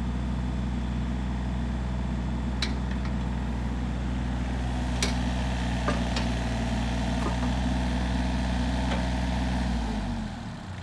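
John Deere 35D compact excavator's diesel engine running steadily while the machine swings its upper structure and boom, with a few light clicks. Near the end the engine note drops and gets quieter, as the engine is throttled down.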